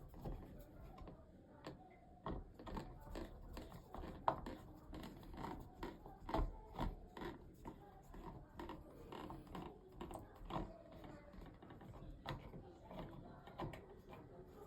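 Phillips screwdriver turning out small screws, with faint, irregular clicks and ticks of the tool and screws and a couple of sharper knocks about four and six and a half seconds in.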